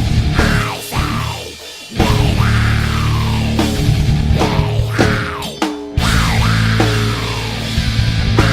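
Recorded heavy rock band music: loud drums and distorted instruments with repeated falling glides in pitch, playing in stop-start phrases that break off briefly about every four seconds.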